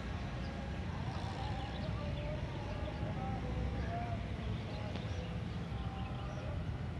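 Outdoor city ambience: a steady low rumble of distant traffic, with faint brief wavering sounds over it.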